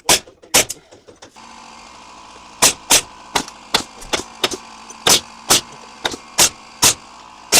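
Repeated sharp strikes on wood, about two a second and somewhat irregular, like hammering on framing. A steady machine hum comes in about a second in and runs beneath them.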